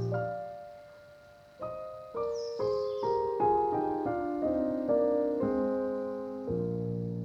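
Background music: a gentle piano melody, single notes every half second or so that each ring and fade, with a low held chord returning near the end.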